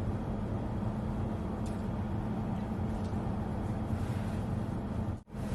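Steady low hum of a car driving, heard from inside the cabin, with a brief break near the end.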